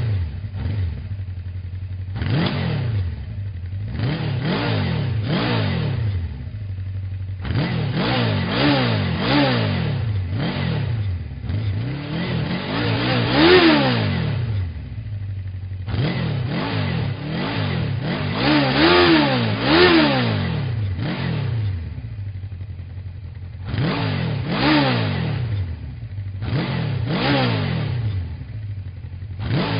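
Honda motorcycle engine idling and being revved in repeated throttle blips, each sending the revs up and straight back down. The blips come in clusters with short stretches of steady idle between them, and the highest revs are around a third and two thirds of the way through.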